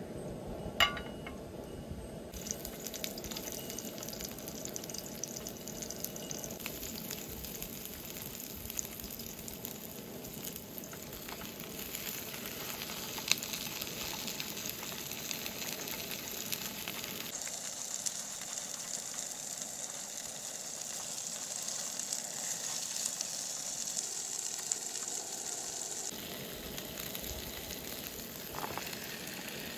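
Fish and sliced onions sizzling as they fry in hot oil in a pan. The sizzle turns brighter and hissier about two-thirds of the way through. There is one sharp click about a second in.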